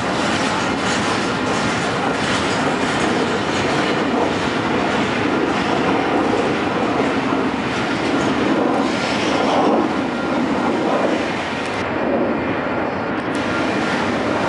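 Union Pacific double-stack container freight cars rolling past, a steady loud rumble of steel wheels running on the rails.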